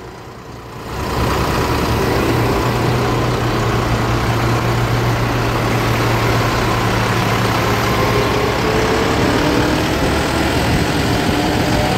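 Tractor engine running steadily, with a low even hum. It comes in about a second in and holds at one pitch.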